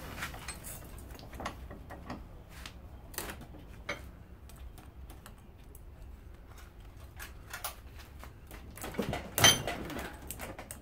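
Irregular light clicks and taps of metal being worked by hand as the copper windings are pulled out of an electric lawnmower motor, with a louder burst of noise about nine seconds in.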